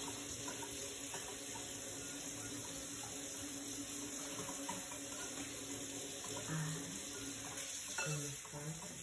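Steady rush of a running kitchen tap, with a faint hum in the pipes.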